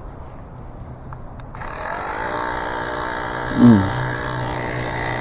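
A small electric motor starts abruptly about a second and a half in and runs on with a steady hum. About two seconds later a man gives one loud, short groan that falls in pitch.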